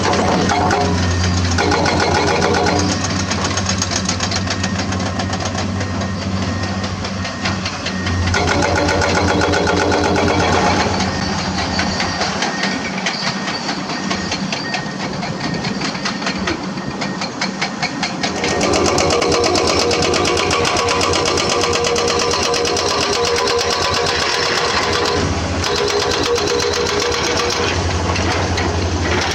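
Hydraulic excavator's diesel engine running under working load, with a fast mechanical clatter. The low engine hum eases off for several seconds partway through, then picks up again.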